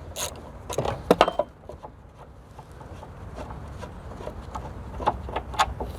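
Hand tools and metal suspension parts being handled, giving a few sharp clicks and knocks in the first second and a half, then sparse fainter ticks, with two more knocks near the end.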